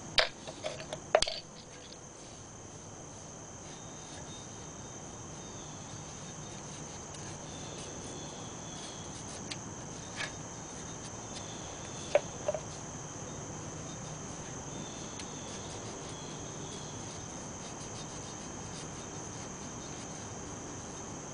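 Steady high-pitched chorus of insects, with a few light clicks and knocks from handling brake parts about a second in and again around ten and twelve seconds in.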